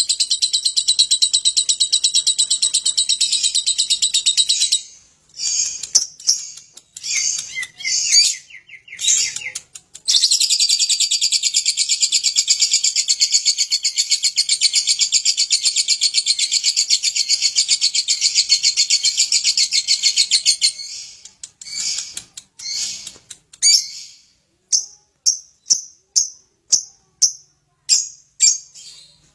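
Lovebird ngekek: long unbroken runs of rapid, high-pitched chattering, one of about five seconds and one of about eleven, with short broken chirps between them. Near the end the song breaks into separate short chirps, about two a second.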